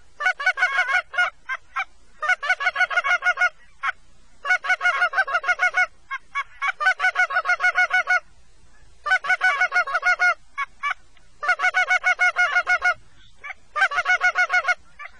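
Goose calls blown by hunters: rapid, loud honks and clucks in seven quick bursts, each about a second long, every couple of seconds, to lure an incoming flock of geese.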